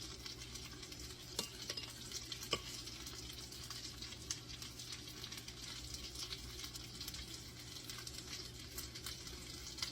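Chicken frying in oil in a pan, a steady sizzle, with a few light clicks about one, two and four seconds in.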